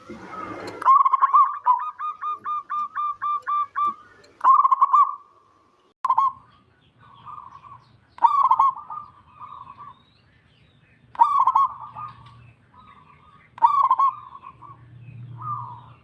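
Zebra dove (perkutut) singing: a quick run of about a dozen short cooing notes, then shorter coo phrases every two to three seconds. A brief rustle comes at the very start.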